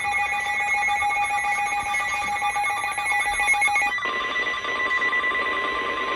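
Emergency alert attention signal preceding a severe thunderstorm warning broadcast: a loud, steady electronic alarm tone made of two pitches, which cuts over abruptly about four seconds in to a single steady tone near 1 kHz.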